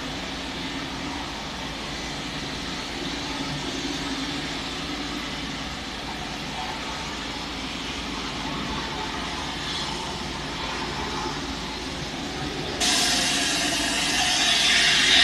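Steady traffic noise from the Western High-Speed Diameter motorway: a continuous hiss and hum of tyres and engines. About thirteen seconds in, a louder, hissier noise comes in suddenly and swells toward the end.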